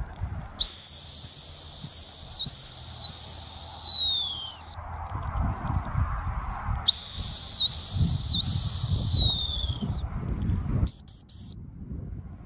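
A dog-training whistle blown in two pulsing strings of toots, each lasting three to four seconds and sagging in pitch at its end, then a few short sharp toots about eleven seconds in: a handler's whistle signals to a retriever swimming out on the water. Wind rumbles on the microphone underneath.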